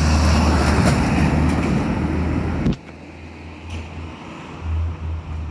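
A car passing close by on the street, its tyre and engine noise loud over the first two and a half seconds and then cutting off abruptly. A weaker low rumble follows.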